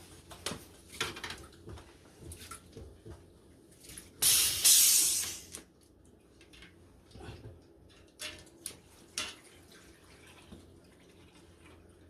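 Scattered clicks and knocks of handling a bicycle wheel and pump. About four seconds in comes one loud hiss of air lasting about a second and a half, while the repaired tire is being inflated.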